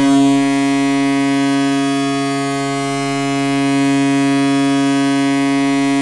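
St. Cloud Norsemen hockey goal horn sounding one long, steady, low blast.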